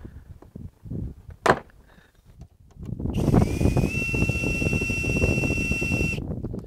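Plastic bumper trim being pulled off by hand, with a sharp click about a second and a half in. Then about three seconds of loud rushing noise with a steady high whine, which cuts off suddenly.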